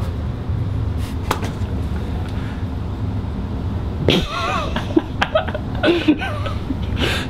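A man making wordless vocal noises: a wavering cry about four seconds in and shorter sounds after it. Under it runs a steady low rumble, with a few sharp clicks in the first two seconds.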